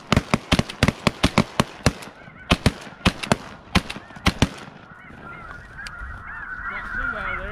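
A rapid volley of shotgun fire from several hunters, close to twenty shots in about four and a half seconds, aimed at a flock of snow geese. When the shooting stops, a dense, continuous chorus of snow goose calls carries on.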